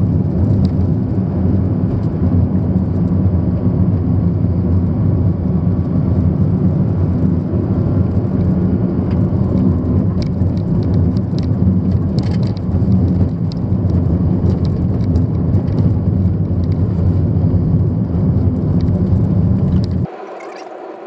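Loud, steady low rumble of a car's engine and tyres on the road, heard from inside the moving car. It cuts off abruptly near the end.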